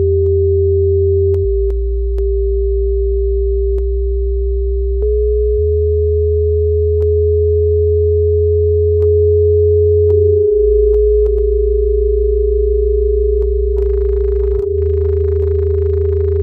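Electronic drone music: a steady pure tone in the middle register, stepping slightly in pitch a few times, over a deep bass drone that switches between two low notes about every four seconds, with faint scattered clicks and a short burst of grainy noise near the end.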